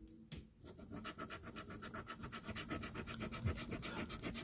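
Scratch-off lottery ticket being scratched, rubbing the coating off the play area in quick, even back-and-forth strokes that start after a brief pause about half a second in.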